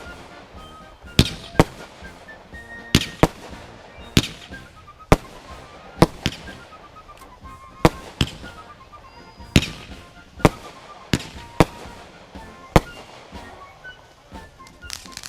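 Fireworks going off: a string of sharp bangs at uneven intervals, roughly one or two a second, some in quick pairs.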